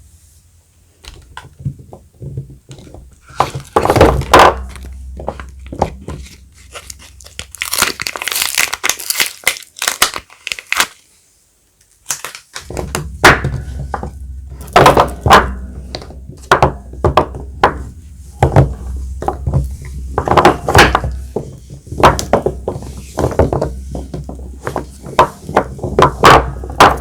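Soap bars being unpacked by hand: wrapping crinkling and tearing, with many knocks and taps as bars and packaging are handled and set down. A dense run of crinkling comes about eight seconds in, and after a short pause the handling resumes over a low hum.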